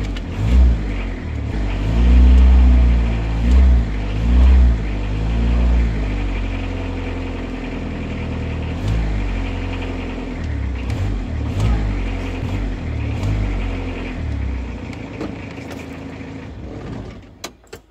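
Hyundai H100 van's diesel engine revved in several blips with the accelerator pedal, pitch rising and falling, then running more steadily and fading near the end: the repaired throttle pedal working the injection pump.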